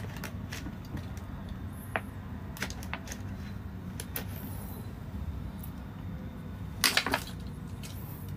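Low room hum with a few light clicks, then a brief crackle of a plastic drink bottle being handled about seven seconds in, just before a drink.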